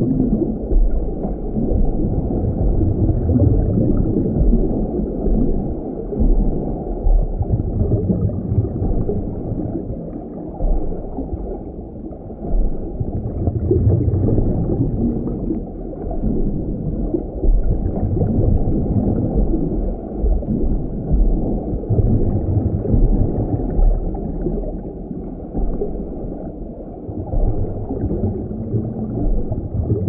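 Sea water heard through an underwater microphone: a muffled, low rumbling wash with gurgling. It swells and eases every few seconds.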